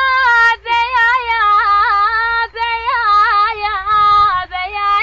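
A high-pitched solo voice singing an Iraqi song, holding long notes and bending them through wavering ornamented runs, with short breaks between phrases. A steady low hum sits underneath.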